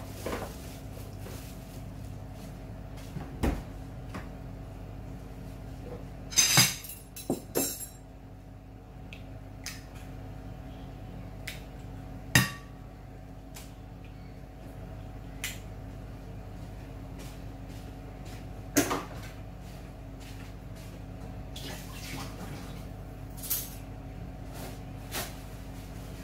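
Scattered sharp knocks and clicks of eggs being cracked into a plate and handled on the table, the loudest a crackling burst about six and a half seconds in, over a steady low hum.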